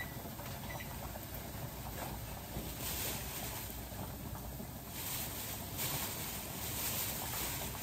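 Pot of potatoes at a rolling boil on the stove, a steady rushing, bubbling noise that swells briefly about three seconds in and again around five seconds in.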